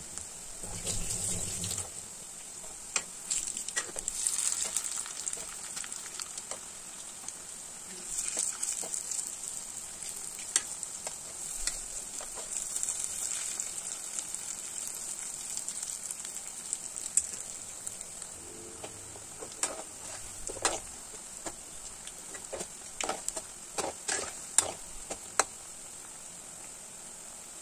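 Medu vada deep-frying in hot oil: a steady high sizzle of bubbling oil, with scattered sharp clicks and pops, several close together in the last third.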